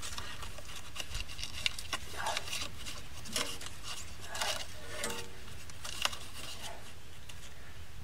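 Light handling noises as a paper shim is slipped between a sawmill band blade and its ceramic guide: soft paper rustling and scraping with scattered small metal clicks and taps.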